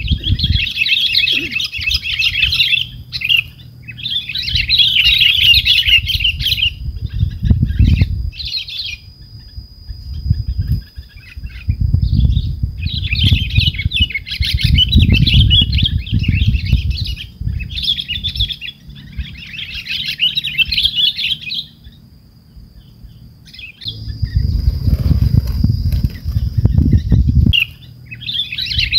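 Sooty-headed bulbuls chattering in repeated bursts of a second or two, over a thin steady high tone and a low rumble that comes and goes.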